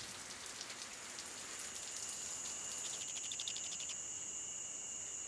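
Rain falling, with scattered drop ticks. From about two seconds in a steady high-pitched tone joins it, with a fast trill of pulses for about a second near the three-second mark.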